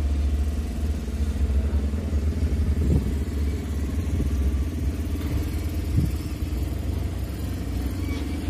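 Steady low rumble of running vehicle engines, with two faint knocks about three and six seconds in.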